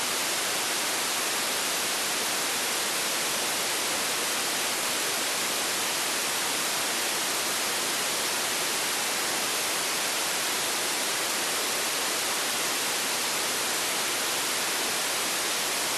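Steady, loud hiss of an unsquelched FM receiver, an SDR# software radio in FM mode tuned near 29.52 MHz on 10 metres, with no station transmitting on the channel.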